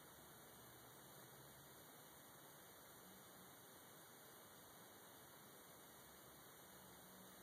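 Near silence: a faint steady hiss and hum of the recording.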